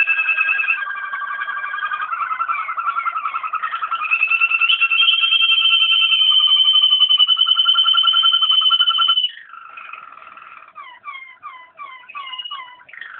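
Waterslager (Malinois) canary song: rapid rolling trills, then a long, even, high trill that stops abruptly about nine seconds in, followed by a softer run of short falling notes, about three a second.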